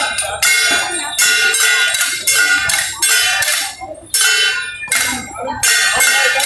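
Metal percussion of a temple procession troupe: gongs and cymbals struck in a repeated beat, about one and a half strokes a second, each stroke ringing with bright metallic overtones.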